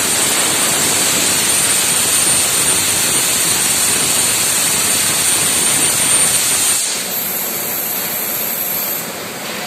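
CNC plasma torch cutting a steel beam: a loud steady hiss with a thin high whine. About seven seconds in it drops to a quieter hiss with a higher whine.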